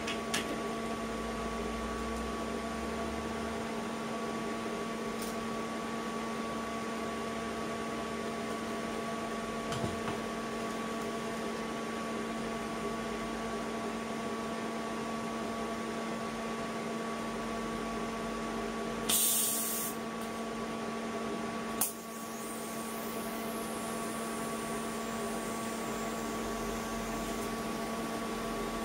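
TIG welding a stainless steel tube: a steady electrical hum throughout, then a brief loud hiss and a sharp click about two-thirds of the way in as the arc is struck, after which the arc burns with a faint high hiss.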